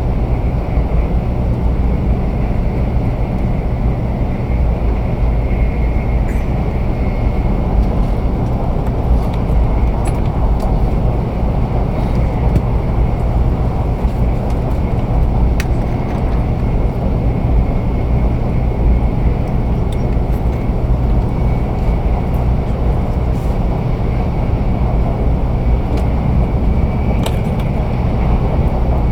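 Cabin running noise of a JR 500-series Shinkansen at speed: a steady low rumble of wheels on rail, with a faint high steady tone above it and a few light clicks.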